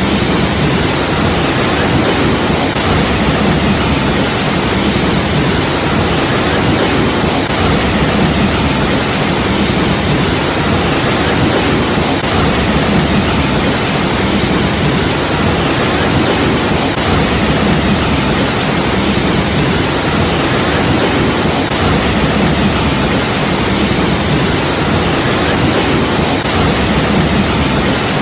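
Waterfall: a steady, loud rush of falling water, unbroken and unchanging.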